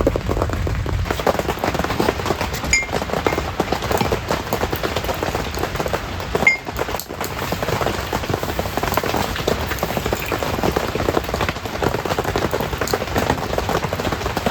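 Wood fire crackling and popping steadily: a dense run of small snaps and clicks.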